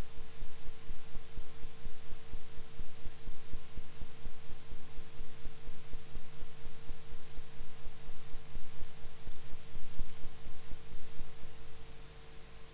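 Steady low hum with a fast, even throbbing pulse and background hiss, a machine or electrical noise on the film transfer's soundtrack. It drops away sharply near the end.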